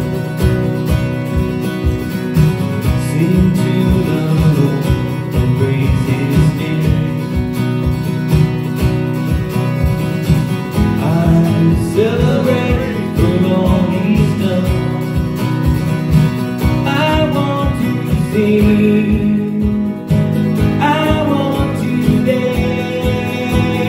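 A live acoustic guitar strummed over a steady beat from an electronic drum kit, with a man singing, the voice clearest in the second half.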